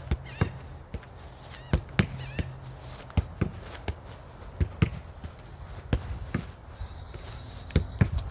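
Soccer ball being struck and touched repeatedly by the feet in a ball-control drill: sharp thuds, often in quick pairs, about once a second.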